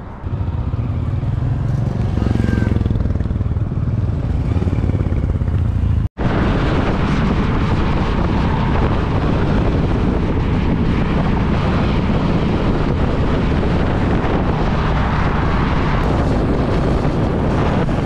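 Motorcycle engine running steadily under way, a dense low rumble. The sound drops out for an instant about six seconds in, then carries on the same.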